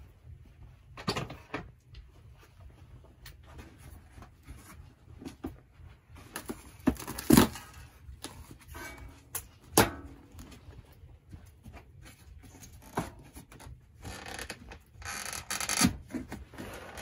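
Plastic body panels of an ATV being worked loose by hand: scattered clicks and knocks of plastic and fasteners, with a stretch of rustling and scraping as a panel is pulled near the end.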